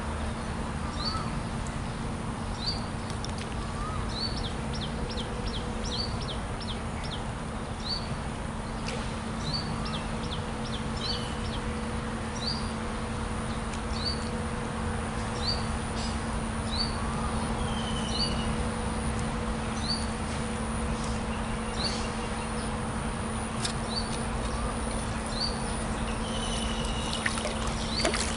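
Small birds chirping: short rising chirps every second or so, with a quick run of them in the first quarter, over a steady low hum and an even hiss.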